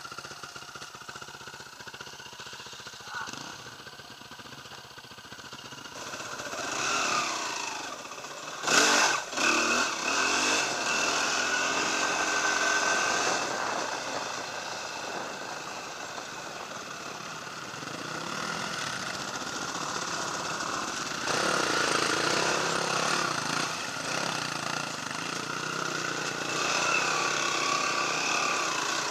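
Dirt bike engine heard from on the bike: idling at first, then revving and pulling away at about six seconds, and running at varying throttle while riding, with two sharp knocks about nine seconds in.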